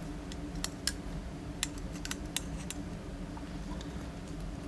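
Light, irregular metallic clicks and taps of a pin-tumbler lock and small tools being handled while the lock is taken apart.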